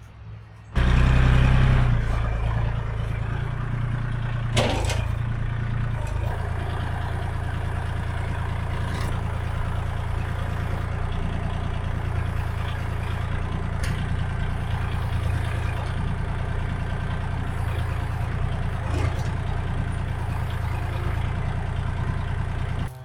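An engine starts up about a second in, runs louder for a moment, then settles into a steady idle, with an occasional knock.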